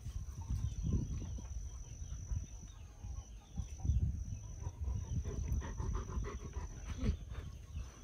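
Great Pyrenees dog giving low-pitched vocal sounds in uneven bouts, with a short rising call about seven seconds in.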